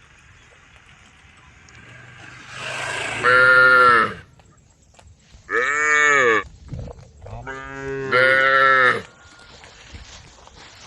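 Cows mooing: three loud calls about three, six and eight seconds in, each lasting about a second, with quiet gaps between.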